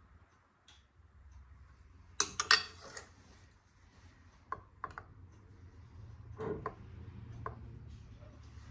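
Glass canning jars and metal utensils clinking and knocking while hot jelly is filled into the jars, the loudest cluster of clinks about two seconds in and a few single knocks after, over a low steady hum.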